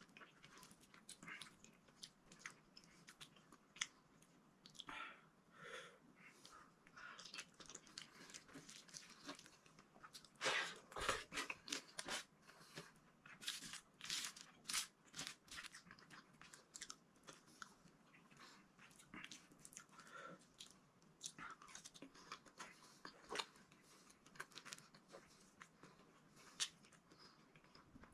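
A person chewing and eating close to the microphone, with many small, irregular mouth clicks and smacks.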